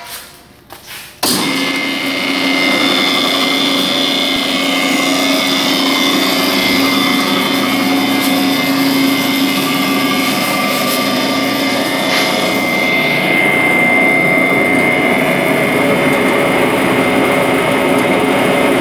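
Fitzpatrick stainless-steel hammer mill (Fitz Mill) switched on about a second in, then running steadily empty, its motor and spinning bladed rotor giving a constant hum with a high whine on top.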